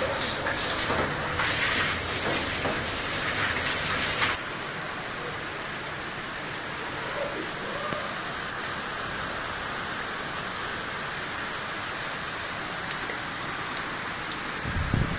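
Water gushing loudly close by, a strong stream falling from a roof spout. About four seconds in it drops away suddenly, leaving the steady noise of heavy rain falling.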